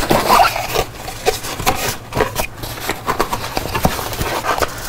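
Cardboard box being opened by hand: the lid scraping and rubbing as it is lifted, then a foam sheet inside handled, with scattered small taps and rustles.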